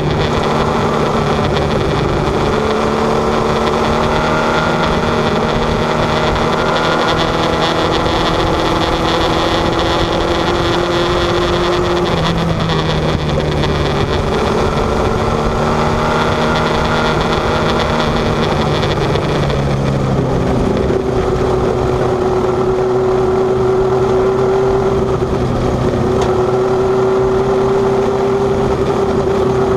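Mini sprint race car engine running hard, heard onboard the car. Its pitch climbs slowly as it pulls, drops sharply twice, about twelve seconds in and again about twenty seconds in as the driver lets off, then climbs again.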